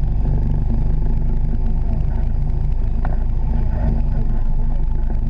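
Honda Pioneer 700-4 side-by-side's single-cylinder engine running steadily under load, heard from the driver's seat in the open cab.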